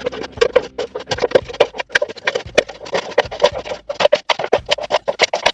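Background music with quick percussive, wood-block-like beats.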